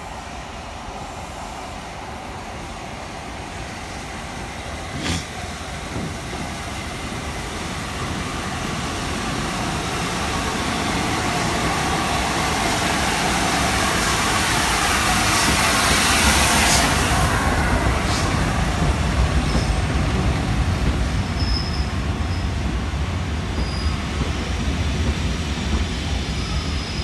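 LNER A4 Pacific steam locomotive 60007 Sir Nigel Gresley running into the station alongside the platform. The sound grows steadily to its loudest as the engine passes, about halfway through, then its coaches roll by with a steady low rumble. There is a single sharp click about five seconds in.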